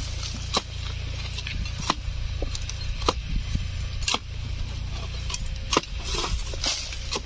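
Wooden-handled digging tool striking into soil and roots, six sharp blows about a second apart, over a steady low rumble.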